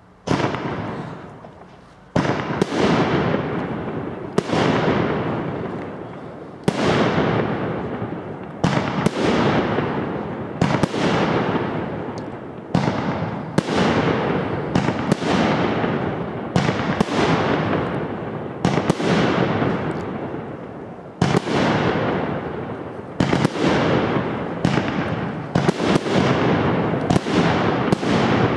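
A professional fireworks display: mortar-fired aerial shells going off in a steady series of sharp bangs, about one every one to two seconds and closer together toward the end. Each bang trails off in a long rolling echo.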